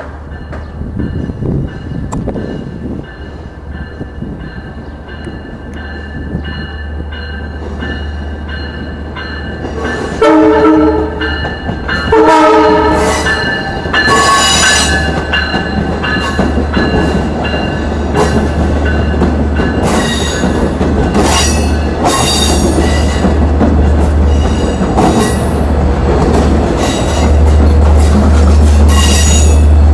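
Level crossing bell ringing while a Long Island Rail Road commuter train approaches. The train sounds its horn in two blasts, about ten and twelve seconds in, as a warning for the crossing. Its bilevel coaches then run past with wheel clatter and some squeal, louder toward the end.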